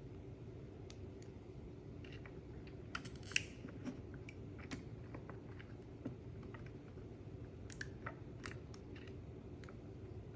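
Light, irregular clicks and taps of small kit parts being handled, over a faint steady hum.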